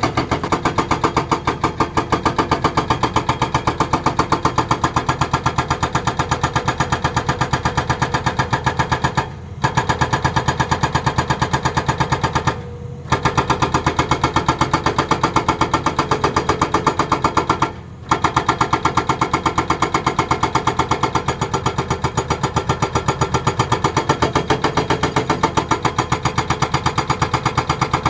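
Hydraulic breaker on a Tata Hitachi excavator hammering in a rapid, even stream of blows, stopping briefly three times: about a third of the way in, near the middle and about two-thirds of the way through.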